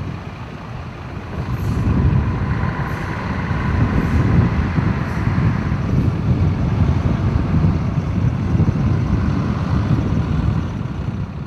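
Steady low rumble of heavy road vehicles running, growing a little louder about a second and a half in, with a faint whine over it in the middle; it fades near the end.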